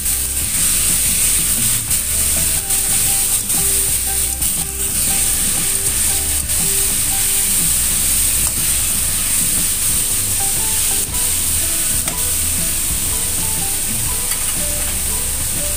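Chicken, carrot and mushroom sizzling in a stainless steel wok while a spatula stirs and scrapes them against the pan, a steady frying hiss with scattered clicks of the spatula.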